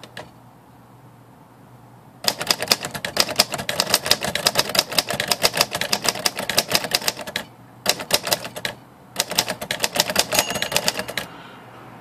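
Royal Quiet De Luxe manual typewriter being typed on: three runs of rapid keystrokes starting about two seconds in, broken by two short pauses. The machine is freshly cleaned after being drenched in WD-40 and is typing perfectly.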